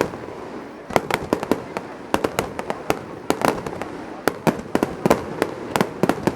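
Fireworks display in its closing barrage: aerial shells bursting in rapid clusters of sharp bangs, several a second, over a continuous rumble of echoing explosions.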